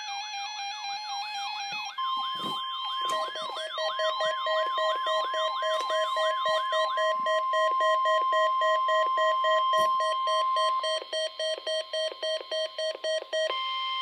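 NOAA Weather Radio 1050 Hz warning alarm tone, a steady tone lasting about nine seconds, with weather alert radio receivers sounding their own alarms over it: rapid repeating falling sweeps and a pulsing beep. The receivers' pulsing goes on for a few seconds after the broadcast tone stops.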